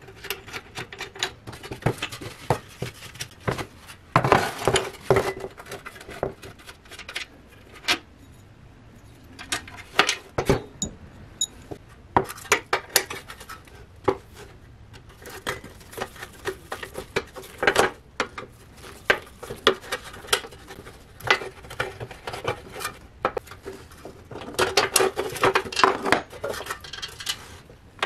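Hand tools and small metal parts clicking and clinking in uneven bursts: a wrench working on the rusty gas pipe and fittings of an old propane camping stove, and a pipe clamp and screws being handled and set down.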